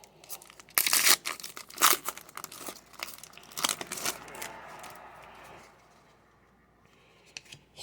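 Crinkling and tearing of a trading-card pack wrapper being ripped open, loud sharp crackles for about three seconds, then a softer rustle that dies away about two-thirds of the way in.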